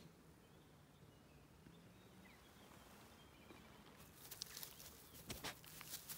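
Near-silent rural ambience with faint distant birdsong, then a run of close rustling and clicking about four seconds in.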